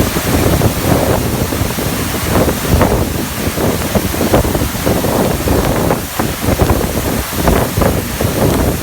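Loud, continuous rush of a waterfall in heavy flow after a typhoon, with uneven low rumbling pulses of falling water throughout.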